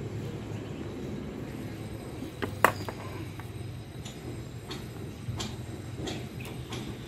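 Handling clicks and taps from a motorcycle carburetor control cable and its metal end fitting as it is threaded into place, with one sharp click about two and a half seconds in and a few fainter ones later, over a steady low hum.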